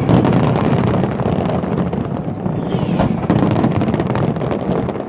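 Fireworks display: dense crackling with a few louder bangs over a steady low rumble. The rumble may be partly wind on the microphone.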